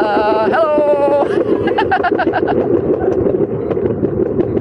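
Longboard wheels rolling fast downhill, a steady rumble with a quick run of clacks, over the running noise of a passing train; a child shouts "Hello!" about a second in.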